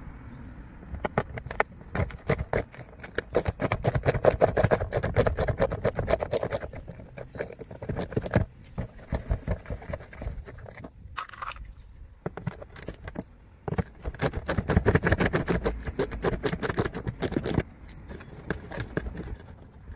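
Rapid scratching and rubbing of a hand on the textured plastic wheel arch liner close to the microphone, in two long spells with scattered clicks between.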